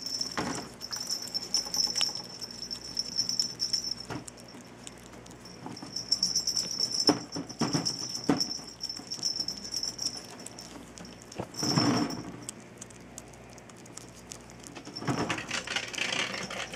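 Ferret gnawing and chewing on a raw pork neck, a run of rapid small clicks and crunches in spells, broken by a few louder bursts of noise.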